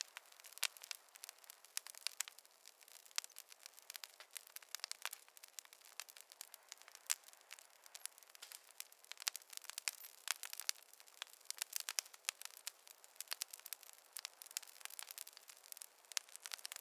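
Wood fire in a fireplace crackling: irregular sharp pops and snaps, several a second, over a faint steady hiss, with no low rumble underneath.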